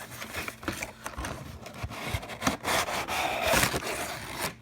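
Tape being peeled off a cardboard toy box: a rough scratching and rubbing of tape and cardboard with small clicks, louder in the second half, then stopping abruptly.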